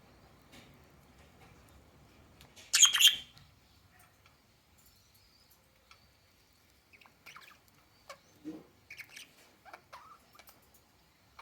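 Budgerigars calling: one loud, brief squawk about three seconds in, then a run of short, quieter chirps near the end.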